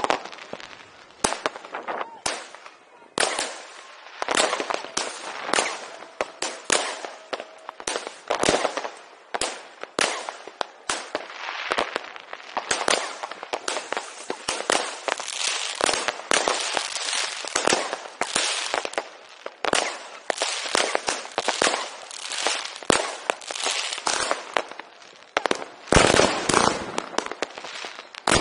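New Year's Eve firecrackers and fireworks going off in a dense, unbroken barrage: many sharp bangs and crackles a second, with a cluster of louder bangs near the end.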